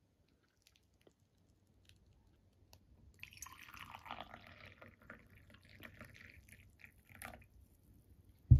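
A few seconds of water trickling and dripping, then a single low thump near the end.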